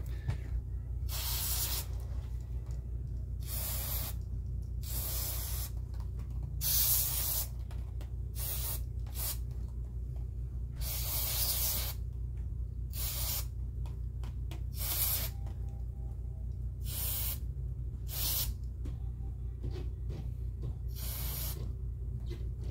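Aerosol spray can hissing in about a dozen separate bursts, some short and some about a second long, as cleaner is sprayed onto a very dirty clock movement. A steady low hum runs underneath.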